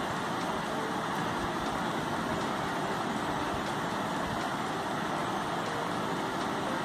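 Steady, even background noise with no distinct events, too constant to be the skewering itself.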